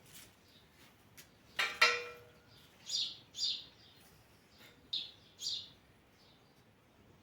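A sharp double metallic clank that rings briefly, about two seconds in, then small-bird chirps in two pairs, short and high.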